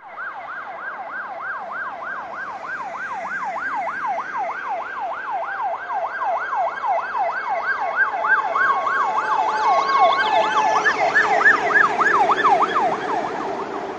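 Fire engine sirens in a fast yelp, rising and falling about three times a second, growing louder as the trucks approach and loudest as one passes near the end. Partway through, a steady two-note tone alternates over the sweeping siren, and a second, higher siren joins in.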